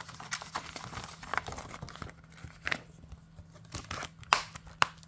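A plastic Blu-ray case and its paper artwork insert being handled: rustling and crinkling with scattered light taps, then two sharp clicks near the end.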